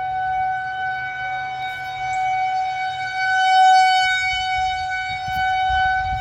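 Federal Signal 2001-130 outdoor warning siren sounding a steady alert tone, one unbroken pitch, swelling in loudness a little after the middle and easing off again as its rotating head sweeps past.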